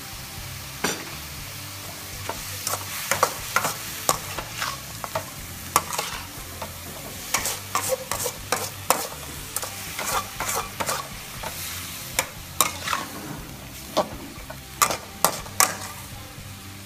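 Metal spatula scraping and knocking against a metal wok as broccoli, carrots and pork are stir-fried, over a steady sizzle. The sharp scrapes and clinks come irregularly, starting about a second in.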